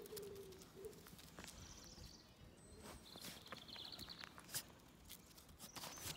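Quiet footsteps and scuffs on gravel, with a brief whine in the first second.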